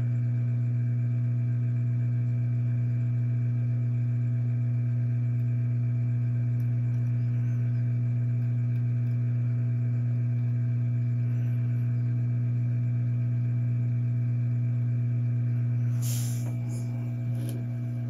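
Hot-air rework station blowing a steady low hum with several fixed tones while it holds the solder under a replacement HDMI port molten. The hum eases slightly near the end, with a faint click.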